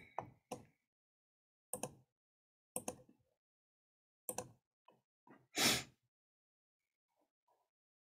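Computer mouse clicks, several short sharp ones spread a second or so apart, and a louder, longer puff of noise about five and a half seconds in.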